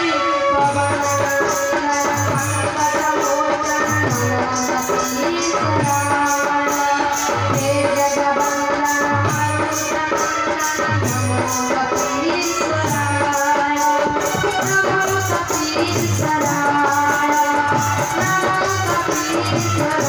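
A young girl singing a devotional chant into a microphone, accompanied by a drum and rattling percussion keeping a steady beat.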